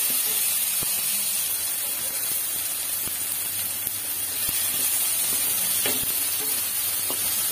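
Shallots, tomato pieces and whole spices frying in hot oil in a kadai: a steady sizzle, with a few light knocks of the wooden spatula stirring them.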